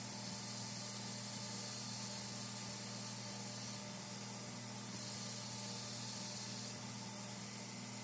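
Belt grinder running with a steel knife blade pressed against its abrasive belt: a steady grinding hiss over a low motor hum. The hiss is stronger in two passes, easing just before four seconds in and again near seven seconds. The blade's bevels are being ground.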